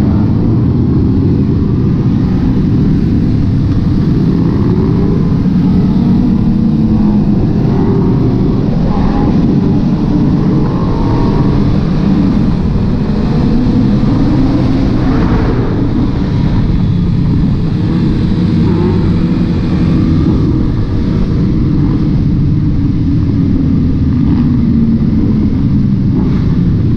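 Many motorcycles riding together in a large group, engines running loud and revving up and down in overlapping waves of pitch.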